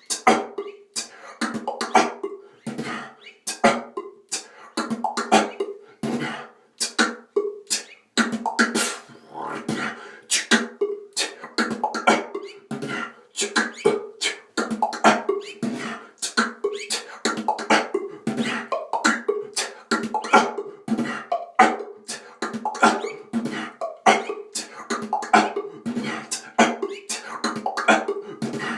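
Solo beatboxing: a fast, continuous run of mouth-made kicks, clicks and hi-hat strokes over a hummed note, with a cough used as the snare.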